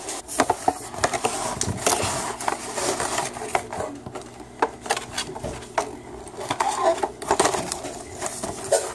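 Handling noise: irregular knocks, taps and scrapes as a zipped earbud case and its packaging box are handled and set down on a wooden table.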